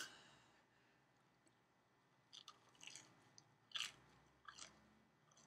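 Faint chewing of a mouthful of batter-fried herb fritter: a handful of short, soft, irregular mouth sounds starting a couple of seconds in, the loudest near the middle.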